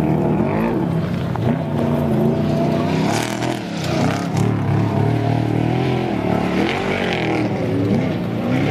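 Off-road desert race vehicle engines revving hard, the pitch climbing and dropping again and again as the drivers get on and off the throttle around the jump.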